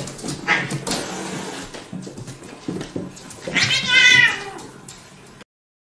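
A pet animal crying out: a short high call about half a second in, then a louder wavering cry lasting under a second near four seconds in, over light knocks and scuffles from the animals playing. The sound cuts off suddenly near the end.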